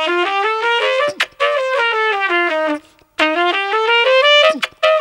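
Solo trumpet playing the eight-note 'trumpet kiss' pattern: quick runs of distinct notes, one climbing and the next falling, about three runs with short breaks between them. Brief clicks fall in the gaps.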